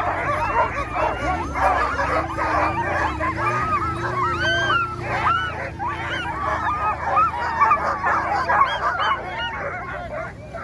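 Many harnessed sled dogs barking and yelping at once, a dense, continuous chorus of overlapping yips as the teams lunge on their ganglines, eager to run. A steady low hum runs underneath from about a second in until near the end.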